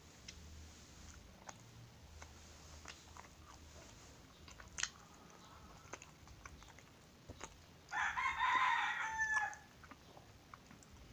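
A rooster crows once about eight seconds in, a loud call lasting around a second and a half and tailing off in a falling note. Soft chewing and mouth clicks from eating soft bread sound around it.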